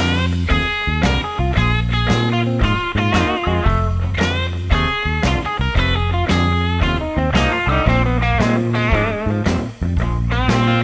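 Blues-rock music: an electric guitar lead with bending, wavering notes over a steady bass and drum beat.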